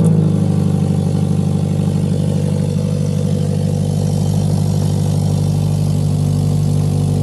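2014 Scion FR-S's flat-four engine idling steadily just after starting, with a brief flare in the first half-second. The rattle from the leaking gasket between the mid pipe and the cat-back exhaust is not heard.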